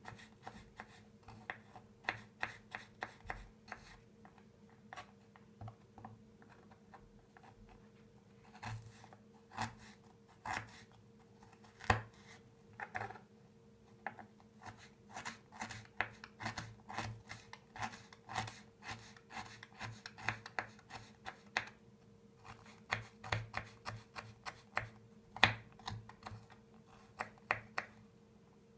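Knife dicing fresh ginger into small pieces on a cutting board: quick runs of light taps with short pauses. A sharper knock comes about twelve seconds in and another near twenty-five seconds.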